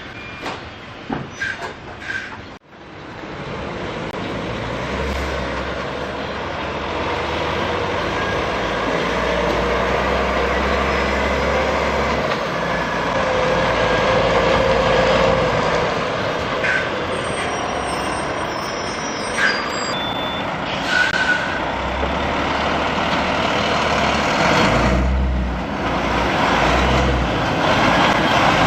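DAF XF truck's diesel engine running as the loaded tractor-trailer moves close by, its low rumble swelling and easing twice. A few short knocks come first, and the sound cuts out briefly about two and a half seconds in.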